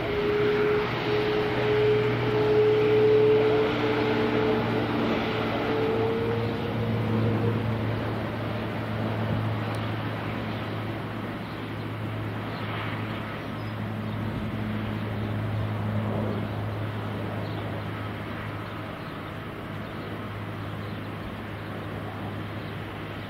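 Airliner engines droning steadily with a low hum and a higher tone that creeps slightly upward. Loudest a few seconds in, then slowly fading as the aircraft moves away.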